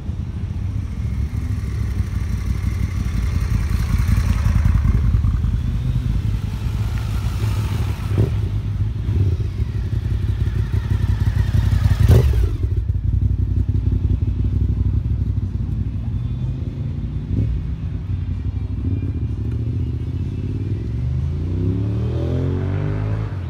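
Motorcycle engines running close by, a low, pulsing engine sound throughout, with a sharp knock about halfway through. Near the end an engine note rises in pitch.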